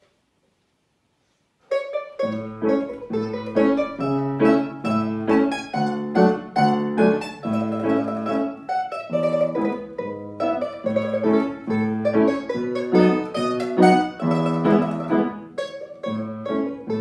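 Bisernica (small lead tamburica) and upright piano playing a lively duet, the quick plucked notes of the bisernica over piano chords. The music starts suddenly about two seconds in, after near silence.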